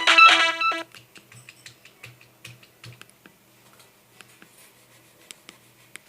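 A Nokia 3110 classic ringtone melody plays for under a second and cuts off suddenly, followed by faint, irregular clicks of the phone's keypad buttons being pressed.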